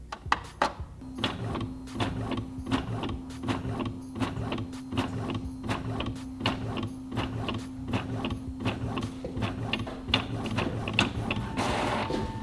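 Epson L382 ink-tank all-in-one printer making a copy: its motors run with a steady hum under a rapid, even run of clicks as the sheet feeds through. A rushing noise comes near the end.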